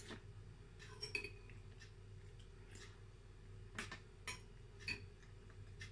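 Light clinks and taps of a metal spoon against a soup bowl, about eight scattered strikes a second or so apart, over a faint steady hum.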